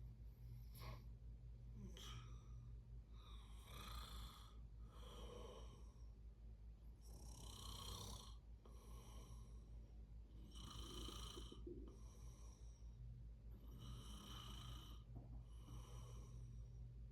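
Soft snoring of a sleeper: a snore on each breath in, followed by a breath out, about every three and a half seconds. A steady low hum runs underneath.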